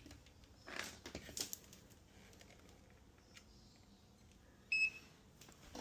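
Faint handling clicks and rustles in the first second and a half, then a single short electronic beep near the end.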